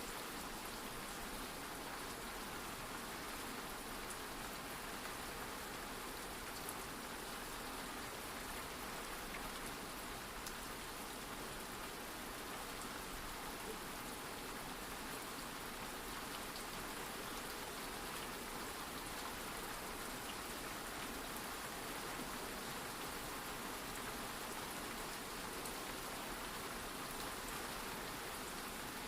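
Steady rain: an even hiss of falling rain with faint scattered drop ticks.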